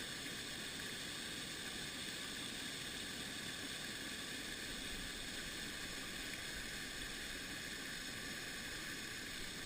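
Steady rushing of a creek running after rain, an even noise with no breaks.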